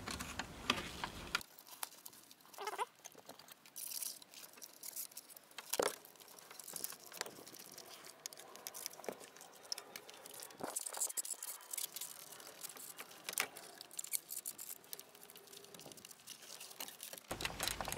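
Faint scraping and scattered small clicks of a flat-tip screwdriver and a plastic pry tool working plastic trim clips loose, with a few sharper ticks.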